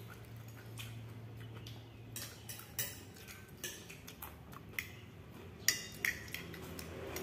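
A metal spoon clinking and scraping against a bowl as food is scooped up, in scattered light clinks. The sharpest come about three seconds in and twice near the end.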